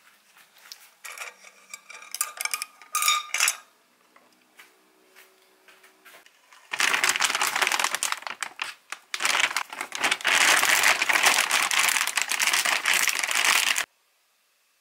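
A few light clinks and knocks of chopsticks against a pot being cleared away, then a plastic bag of fish-shaped buns (bungeoppang) crinkling loudly for about seven seconds as it is handled, cutting off suddenly.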